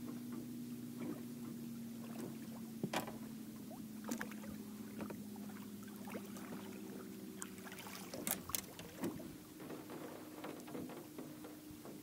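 A largemouth bass being landed by hand at the side of a bass boat: a few sharp knocks and splashes, the loudest about three seconds in and two close together past the eight-second mark, over a steady low hum.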